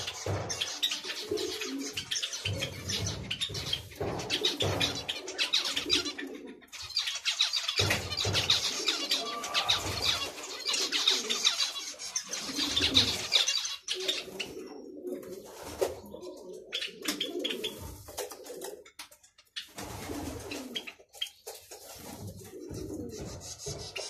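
A flock of captive finches, zebra finches among them, calling and chattering densely with many short, high calls, over lower repeated calls. The chatter thins out a little past the middle.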